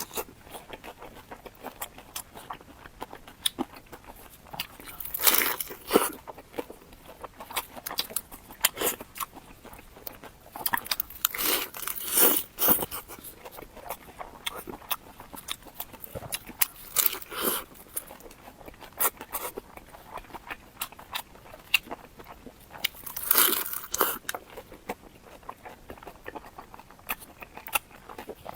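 A person biting and chewing crunchy food close to the microphone: a steady patter of small crackling chews, broken by several louder crunching bites.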